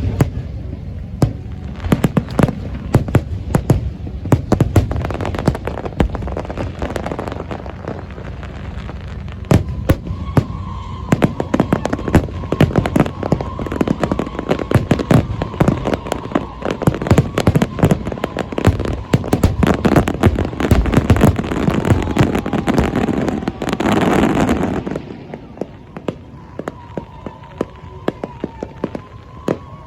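Aerial fireworks display: a rapid, dense crackle of bangs and pops that builds to a rushing swell about 24 seconds in, then thins to scattered pops.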